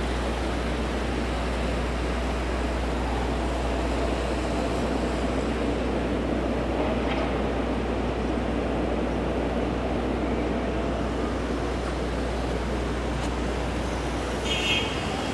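City street traffic: a steady noise of vehicles with a low engine rumble that drops away near the end, where a brief high-pitched tone sounds.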